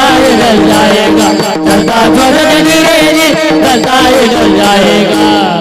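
Devotional kirtan music: a melody with gliding ornaments over steady repeated held notes and hand-drum strokes.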